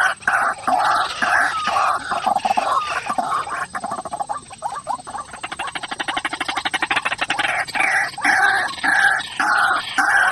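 White-breasted waterhen calling its harsh, repeated "ruak" about twice a second. Midway it breaks into a fast run of clicking, rattling notes, then the rhythmic calls resume near the end.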